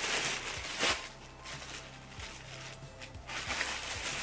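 Plastic shipping bag rustling and crinkling as it is opened and the clothing inside is pulled out, with a sharper crackle about a second in and a quieter stretch before the rustling picks up again near the end.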